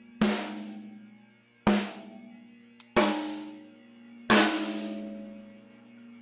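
Drum kit struck four times, slow single hits about a second and a half apart, each one left to ring out and fade before the next.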